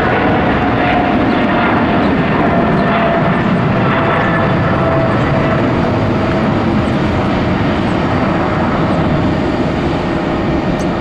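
Boeing 777 airliner jet engines running: a loud, steady rush with a whine that slowly drops in pitch over the first half.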